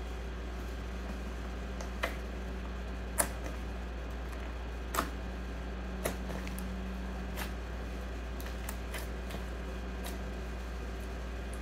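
Sticky honey slime being stretched and pressed by hand, giving a handful of sharp pops and clicks, the loudest about three seconds in, over a steady low hum.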